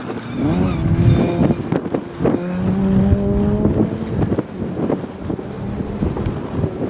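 Rally car engine on a gravel stage, blipping the throttle as it slows for a corner, then accelerating out with the revs climbing. There is a gear change about four seconds in, after which the engine note steadies and grows fainter as the car pulls away.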